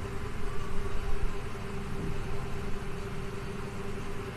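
A steady mechanical hum with one constant tone running underneath.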